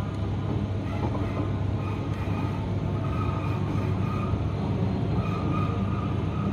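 Cabin running noise of a Queensland Rail SMU 220-series electric multiple unit under way: a steady low rumble of wheels on track, with faint whining tones that come and go.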